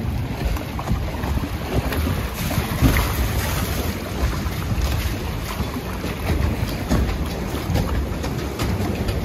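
A log flume boat floating along its water channel: a steady rush of flowing water against the boat, with wind buffeting the microphone.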